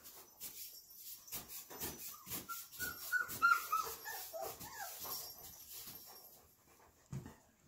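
A four-week-old flat-coated retriever puppy whining in a run of short, high squeaks that slide down in pitch, a few seconds in, among small scuffling clicks of puppies moving on the floor and bedding.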